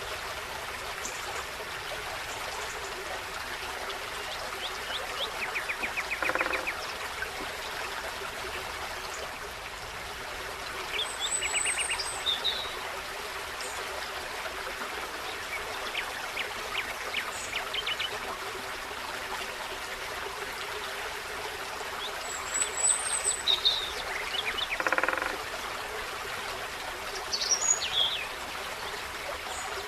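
Forest stream babbling steadily, with birds calling over it: a few quick rattling trills and scattered high chirps and short falling notes.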